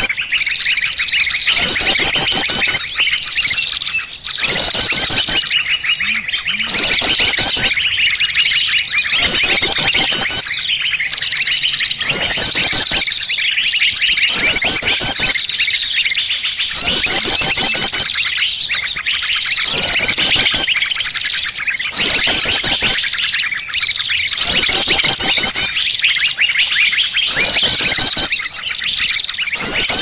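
Bird-trapping lure recording: a dense, noisy chorus of many small songbirds chirping and trilling. A fast trill phrase comes back about every two seconds over a steady high whistle, a mix meant to draw wild birds in.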